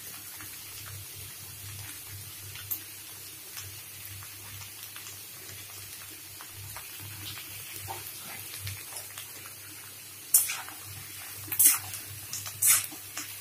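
Chopped onions, capsicum and chillies frying in oil in a metal kadai with a soft, steady sizzle. About ten seconds in, a spatula scrapes and knocks against the pan a few times as the vegetables are stirred.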